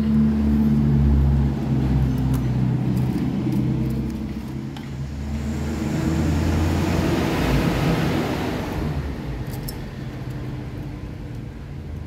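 A motor vehicle's engine running close by, its steady low hum swelling as it passes about halfway through and then fading away.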